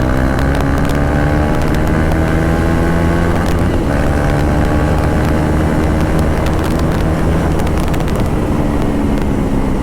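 KTM Duke 390's single-cylinder engine, run without its stock silencer, pulling under acceleration on the move: the engine note climbs slowly, breaks about four seconds in as at a gear change, then climbs again. Wind noise on the microphone runs under it.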